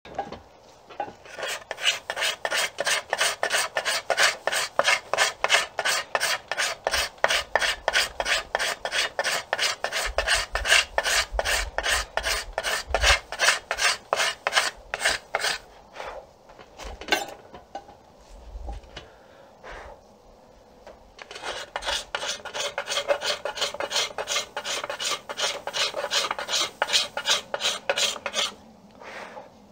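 Hand scraper worked in rapid short strokes along the back of an Osage orange bow stave, about three strokes a second, cleaning the concave spots down to a single growth ring that the flat draw knife could not reach. Past the middle the strokes stop for a few seconds with only a few single scrapes, then start again.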